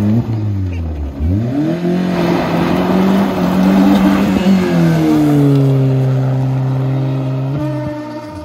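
Peugeot 206 rally car's engine revving hard as it pulls away from a standstill on a gravel road, with gravel spraying from the spinning wheels. The revs climb steeply, drop once about five seconds in at a gear change, then hold and fade as the car drives off.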